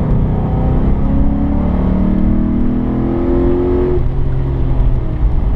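HSV GTS V8 with a lumpy aftermarket cam accelerating hard, heard from inside the cabin. Its engine note rises steadily for about three seconds, then drops suddenly about four seconds in.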